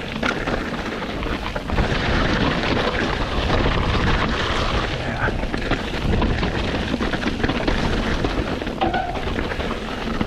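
Mountain bike descending a dirt trail: wind rushing over the camera microphone with a constant clatter of tyres and bike over the rough ground.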